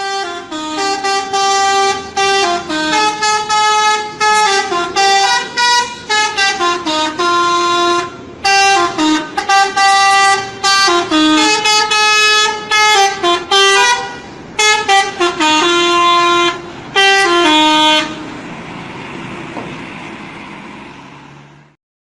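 Indonesian 'telolet' bus horn, a multi-tone musical horn, playing loud, quick phrases of stepped notes again and again for about eighteen seconds. Then a steady rush of vehicle noise fades, and the sound cuts off suddenly near the end.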